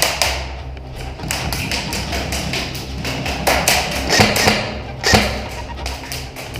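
Airsoft gunfire in a close exchange: a run of sharp snaps and taps, thickest a little past the middle.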